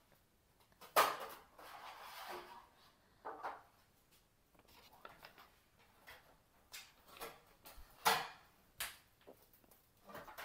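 Baked loaves being turned out of metal loaf tins: a sharp knock about a second in followed by a scraping rattle, another knock a little later, then a few more knocks and clatters near the end as the tins and bread are handled on a metal cooling rack.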